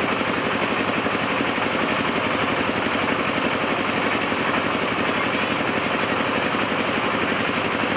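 Diesel railcar engine idling steadily at a standstill, with a fast, even throb.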